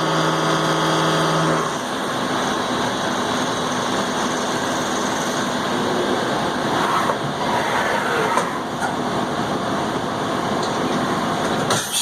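A 1.5-inch shell mill on a Haas VF-2 vertical milling machine is face milling about 1/16 inch off the part, with the spindle in low gear. For the first couple of seconds there is a steady spindle whine. The cut then takes over as a loud, continuous rough grinding noise.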